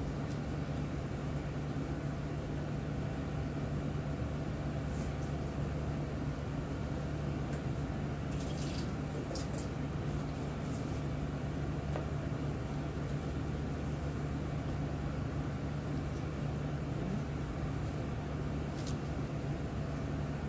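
A steady low hum, with short bursts of water splashing at a sink about halfway through.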